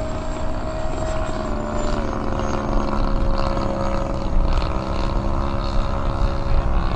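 The RC Super Decathlon's 100cc twin-cylinder gasoline engine and 28-inch propeller droning steadily as the plane flies overhead, the pitch dropping slightly about two seconds in.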